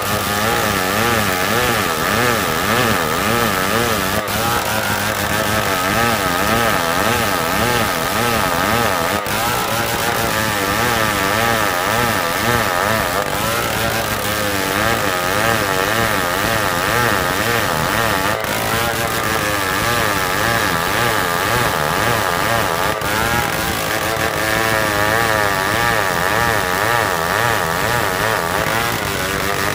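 Old two-stroke chainsaw running hard under load, ripping lengthwise through a log of hard marsawa batu wood. The engine note wavers up and down continuously as the chain works through the cut.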